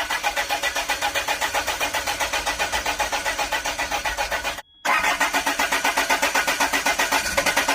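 Land Rover diesel engine cranked on the starter in two attempts, each a steady rhythmic churning that stops abruptly, without the engine catching. It cranks but won't fire, a no-start the owner's friends put down to the fuel system.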